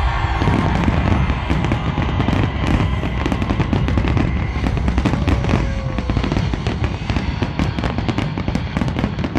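Fireworks going off in a dense, continuous barrage: many bangs and crackles a second over a low rumble.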